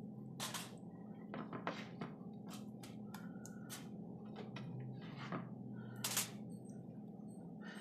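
Soft, irregular taps and rustles of diced tomato being dropped and pressed by hand onto a fish lying on aluminium foil, over a steady low background hum.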